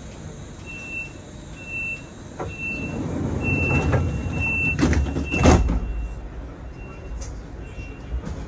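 Door-closing warning beeps of a DB Class 425 electric multiple unit, a high tone sounding about once a second, with two loud knocks about five seconds in as the doors shut. The beeps carry on more faintly afterwards.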